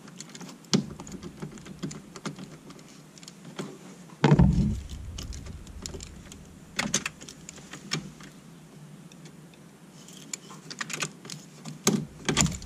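Clicks, taps and light rattles of plastic and metal parts being worked loose by hand at a steering column, with one louder thump about four seconds in.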